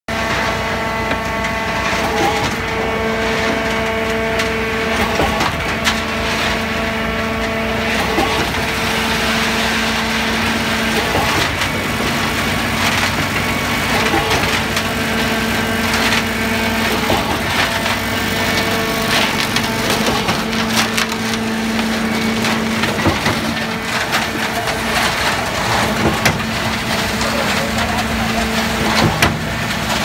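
Concrete mixer pump running: a steady machine hum with a pitched tone that fades in and out, over constant rattling and knocking from concrete and aggregate churning in the turning mixing drum.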